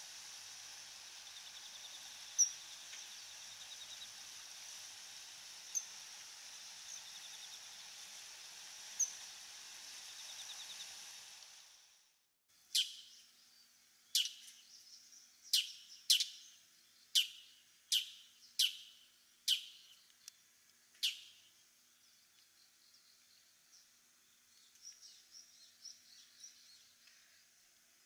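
Daurian redstart calling: three short, high notes and a soft ticking rattle, over a steady hiss. Then, after a cut, a bull-headed shrike gives about nine or ten loud, piercing calls, each falling sharply in pitch, a second or less apart, followed by fainter notes.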